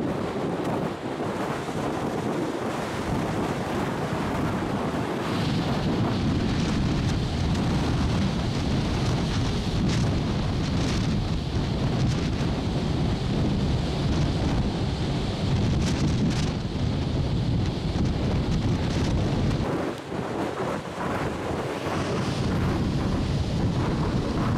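Wind buffeting the microphone on an open ship's deck, a steady low rumble over the rush of the sea, dipping briefly near the end.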